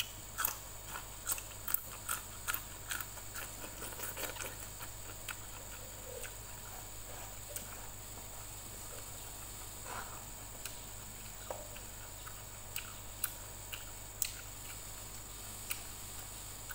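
Close-up chewing of a raw green bean: crisp crunching clicks, several a second for the first few seconds, then thinning to scattered smacks and clicks.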